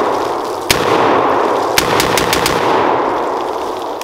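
Springfield Armory SAINT Victor AR pistol firing: one shot under a second in, then a quick string of five shots a little after two seconds in. A long echoing rumble follows the shots and slowly fades.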